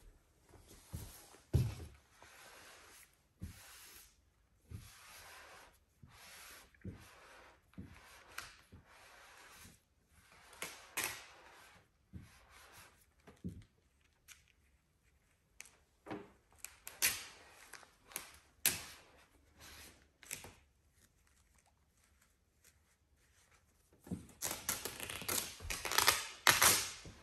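Microfiber cloth rubbing a matte black vinyl decal down onto a car hood in repeated strokes, with scattered light taps and knocks. Near the end, louder rustling and crinkling as the vinyl sheet is lifted and worked by hand.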